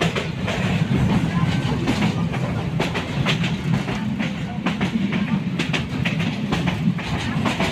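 Passenger train running, heard from inside the coach by an open window: a steady low rumble with frequent clattering knocks from the wheels on the track.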